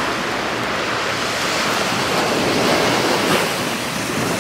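Small waves washing onto a sandy beach, heard as a steady rush, with some wind on the microphone.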